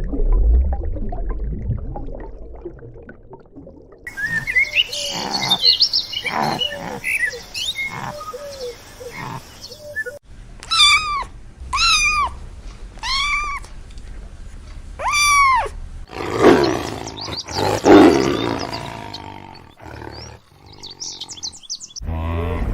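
A succession of different animal calls: a low rough roar-like call first, then a mix of short gliding calls and chirps, then five arched calls that rise and fall, repeated about every second and a quarter, then a louder, rougher call.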